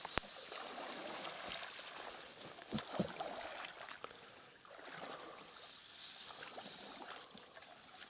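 Faint steady water and wind noise, with a sharp click just after the start and a couple of soft knocks about three seconds in.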